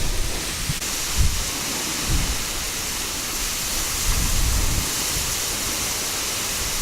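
Wind gusting over the microphone: a steady hiss with irregular low buffeting rumbles.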